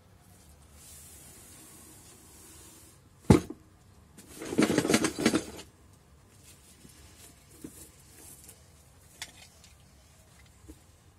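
Shrink-wrapped cardboard box being handled: a single sharp knock a little over three seconds in, then about a second and a half of loud crinkling and rubbing of the plastic wrap, followed by light scattered crinkles and taps.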